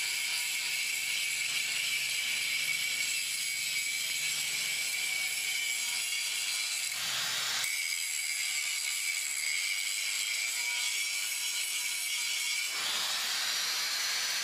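Angle grinder whining steadily at a high pitch, mixed with the hiss of a gas welding torch; near the end the whine rises in pitch.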